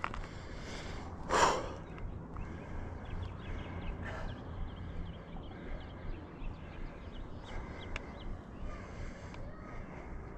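A hiker breathing hard while climbing a steep trail, with one loud breath about a second and a half in, followed by faint scuffing steps on rock and grit.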